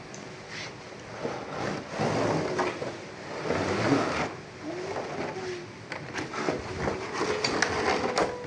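Plastic toy train pieces clicking, scraping and rattling in irregular bursts.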